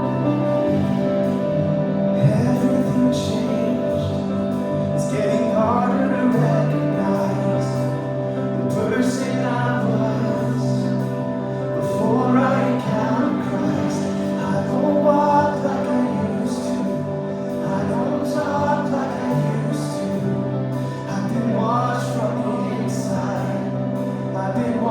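Live worship band playing a slow song intro: sustained keyboard pad and bass chords, with a melody line over them from about five seconds in.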